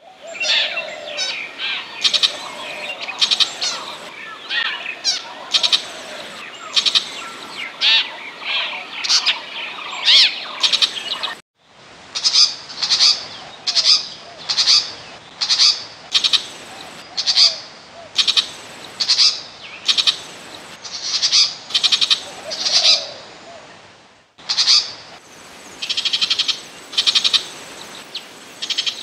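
Burmese shrike calling: harsh, scratchy notes repeated roughly once a second. The sound cuts out briefly twice, a little before the middle and again near the end, where the recording is looped.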